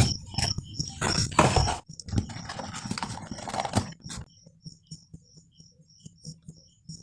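Handling noises, rustling and knocks as of a box and its packaging being handled, busy for about four seconds and then fading to sparse small taps, with a faint regular high ticking throughout.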